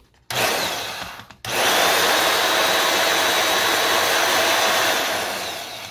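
Milwaukee portable band saw motor and drive running, switched on twice: a short run that dies away, then a steady run from about a second and a half in that winds down near the end. With its freshly replaced drive chain and sprocket fitted with no play, it sounds like a new gear.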